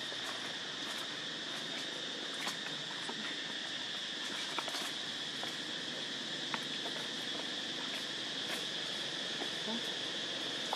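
Steady high-pitched buzz of insects in the surrounding trees, an unbroken drone with a few faint clicks every couple of seconds.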